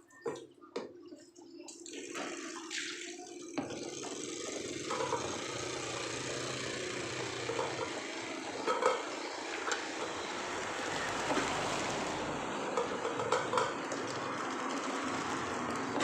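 Kitchen tap running into a sink while dishes are washed by hand, the water coming on a few seconds in and running steadily, with a few light clinks of dishes.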